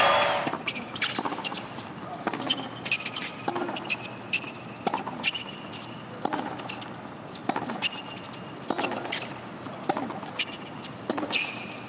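A tennis ball being bounced on a hard court in a serving routine, sharp knocks about once a second, with short squeaks of tennis shoes on the court between them. Crowd applause dies away at the very start.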